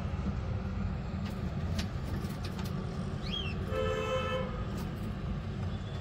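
Steady low background rumble, with a bird's short high chirp just after three seconds and then a flat horn-like honk lasting under a second about four seconds in.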